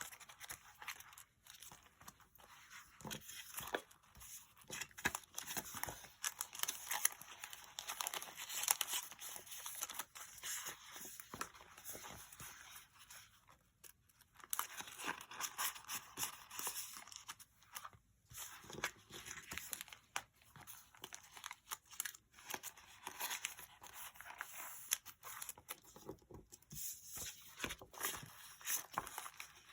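Paper sticker sheets and washi being handled and put into a sticker album: soft, irregular crinkling and rustling of paper, with a couple of brief pauses near the middle.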